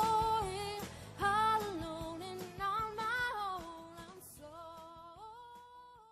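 Background song with a singing voice over soft instrumental accompaniment, fading out gradually toward the end.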